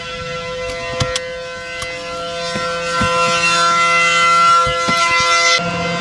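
ACA Allertor outdoor warning siren sounding a steady, unwavering tone, swelling louder over a few seconds as its rotating horn turns. A couple of sharp knocks come about a second in, and the sound changes abruptly shortly before the end.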